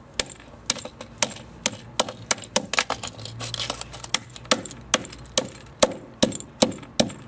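Repeated sharp knocks on a plastic novelty sound pen, at first irregular and then a steady run of about two to three a second, as the pen is smashed apart.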